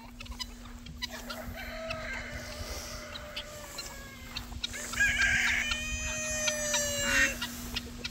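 Roosters crowing: one long, drawn-out crow begins about a second in, and a second, louder crow comes about five seconds in.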